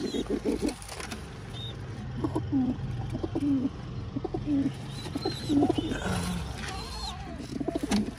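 Domestic pigeons cooing, one low coo after another.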